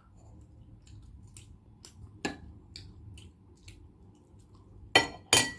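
Someone eating balut close to the microphone: chewing with soft, wet mouth clicks, a sharp click a little after two seconds, then two loud knocks near the end.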